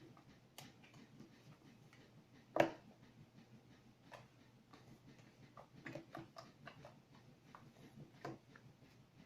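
Sticky homemade slime being kneaded and pulled by hand, giving irregular small wet clicks and snapping pops, with one louder pop about two and a half seconds in. The slime is still sticky, not yet fully activated by the saline solution.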